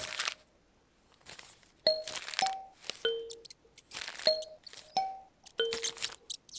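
Kalimba notes plucked one or two at a time, each ringing and fading, with short bursts of paper rustling between and over them. There is a pause of about a second early on.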